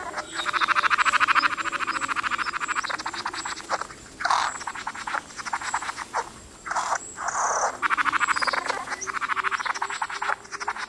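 Male bowerbird giving a rapid, rattling, buzzing display call during courtship: long rattles early and late, with a few short harsh bursts in the middle.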